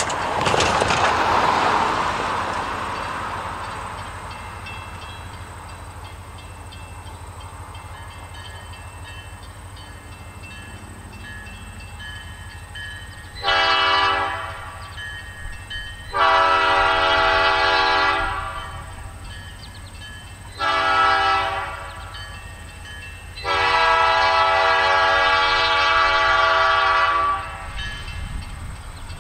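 Approaching EMD SD40-2 diesel locomotive sounding its air horn four times, short, long, short, then the longest, over the low rumble of the train. A rush of noise swells and fades in the first few seconds.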